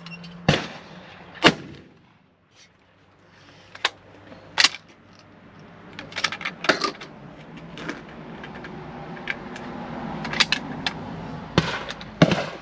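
.410 bolt-action shotgun firing at clays: sharp reports in the first few seconds, the loudest about a second and a half in. Smaller metallic clicks follow later on.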